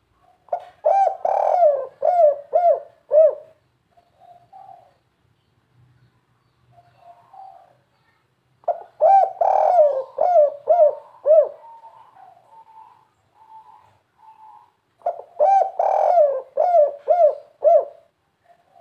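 Spotted dove of the 'kuk 3' song type cooing. Three bouts of repeated coos come near the start, about nine seconds in and about fifteen seconds in, with softer short notes in the gaps between.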